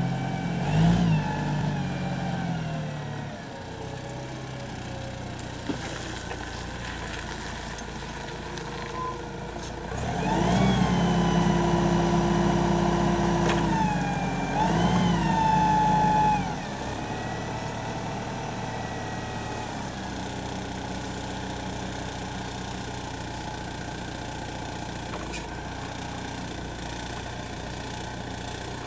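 Samsung SF20D diesel forklift engine running. It revs up in the first few seconds. About ten seconds in it revs higher and holds for about six seconds, with a short dip and second rise, as the hydraulics raise the triplex mast. It then settles to a steady idle.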